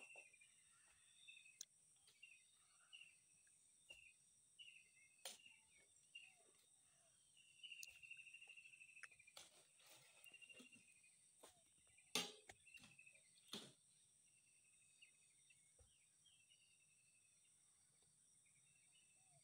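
Faint steady high-pitched insect buzz, with short trilling chirps repeating through the first two-thirds. A few sharp knocks come through, the loudest about twelve seconds in.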